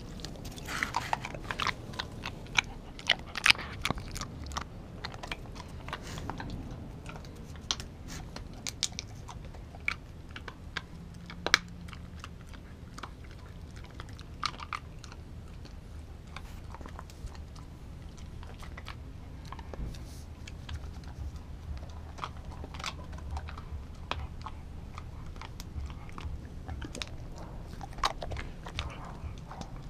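A dog chewing and crunching a raw, half-defrosted turkey leg: irregular wet bites and sharp crunches, thickest in the first few seconds and again near the end, with one loud crack in the middle.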